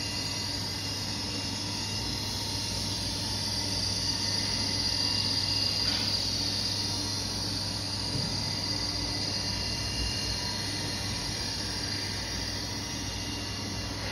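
Steady drone of a CNC router running: a low hum under a constant high-pitched whine, swelling slightly a few seconds in.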